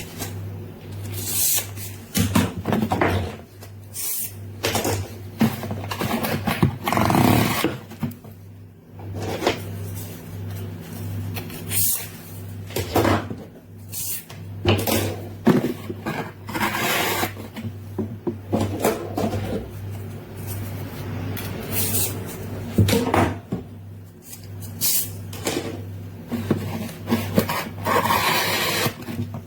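Handling noises from unpacking a knife set: irregular rustling, scraping and knocking of packaging and plastic pieces, some lasting up to about a second, over a steady low hum.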